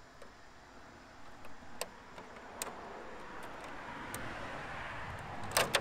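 Scissors snipping through a clear plastic RC car body shell: a few sharp, separate snips, the loudest pair near the end, over a rising crackle and rustle of the thin plastic flexing in the hands.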